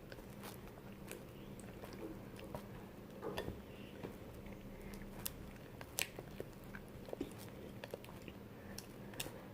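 Plastic spoon stirring thickening shaving-foam slime in a pot: faint sticky squelches and scattered light clicks of the spoon against the container.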